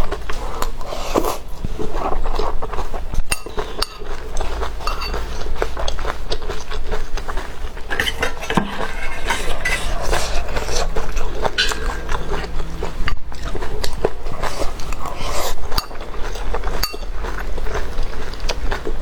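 Close-miked eating: utensils clinking and scraping against a dish, with chewing and biting, as a dense run of irregular clicks and crackles.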